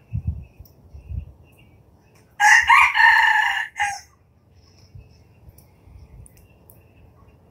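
Red junglefowl rooster crowing once, a single crow of about a second and a half starting a little over two seconds in.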